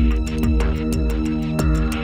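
Electronic background music with a steady beat: a deep kick drum about twice a second under quick hi-hat ticks and held synth chords.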